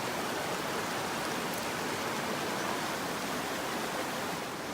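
Mountain stream rushing over rocks: a steady, even wash of flowing water.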